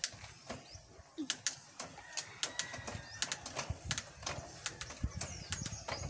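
Shimano Deore M6100 12-speed drivetrain being shifted: a run of sharp, irregular clicks from the trigger shifter and the chain stepping across the cassette.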